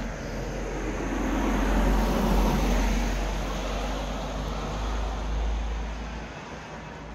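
A car passing on the road, its tyre and engine noise swelling to a peak about two seconds in and then fading away. Low wind rumble on the microphone underneath.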